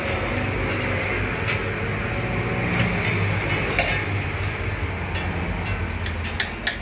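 A few sharp clinks of a metal mug and utensils as sliced onion and chopped spring onion are scooped into it, over a steady low hum.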